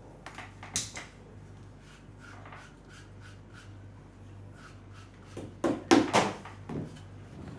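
Saddler's hand-stitching and handling of leather: a few sharp clicks about a second in, then a louder flurry of rubbing and knocking near the end as thread is pulled through a black leather saddle part. A steady low hum runs underneath.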